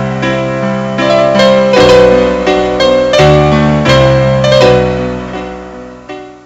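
Background piano music playing chords, fading away near the end.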